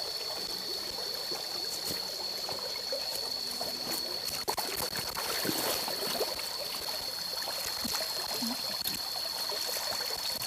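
Water of a small stony forest stream trickling and running steadily, with a continuous high-pitched insect buzz over it.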